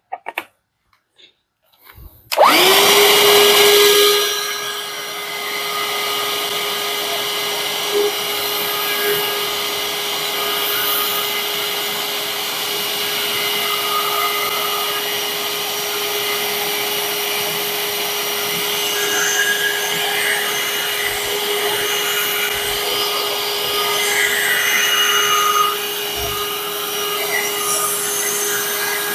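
Parkside 20V cordless handheld vacuum cleaner switched on a couple of seconds in, its motor spinning up to a steady high whine. It settles a little quieter about two seconds later and runs on steadily, picking up water with the wet nozzle in a wet test.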